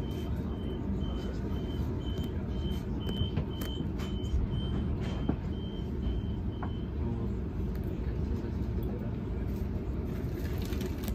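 Sydney Trains Millennium train's door-closing warning: a high beep repeated about three times a second for roughly six and a half seconds, then stopping. Under it runs the train's steady low rumble.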